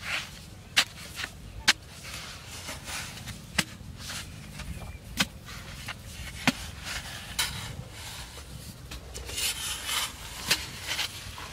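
A long-handled digging tool chopping and scraping into packed soil. Sharp, irregular strikes come every second or two, with scraping and rustling of earth between them.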